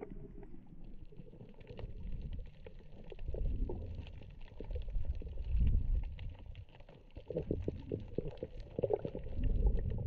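Underwater sound from a submerged camera: a muffled low rumble of moving water that swells several times, with faint crackling clicks throughout.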